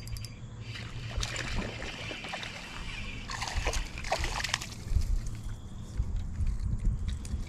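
Hooked largemouth bass thrashing and splashing at the pond surface while it is played toward the bank, in two bouts: about a second in, and again from about three to four and a half seconds in.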